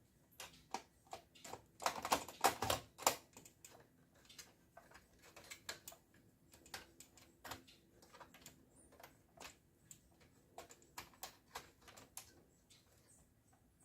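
Irregular light clicks and knocks of plastic and metal parts being handled as a DVD drive is fitted into a Dell Inspiron 3268 desktop case and its cables are worked at the connectors, with a dense run of louder clicks about two to three seconds in.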